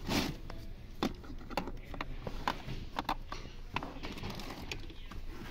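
Irregular light clicks and taps of a plastic pillar trim panel and seat-belt webbing being handled while the belt is threaded through the trim.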